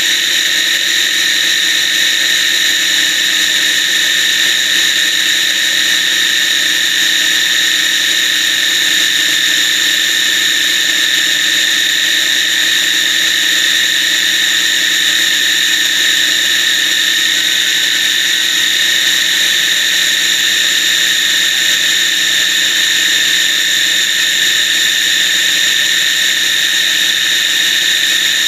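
Food processor motor running steadily with a high whine, blending garlic as oil and lemon juice are streamed in to emulsify it into a thick, mayonnaise-like toum.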